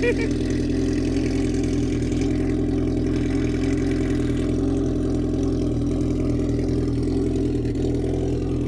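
A car engine running steadily at an even pitch and level.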